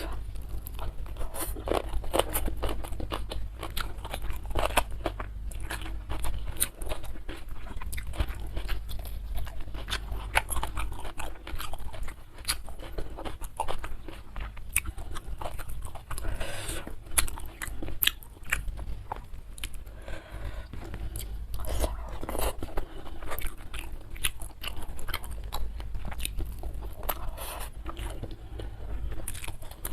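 Close-miked chewing and biting on crunchy fried catfish, with many sharp crunches and crackles and steady mouth sounds over a low hum.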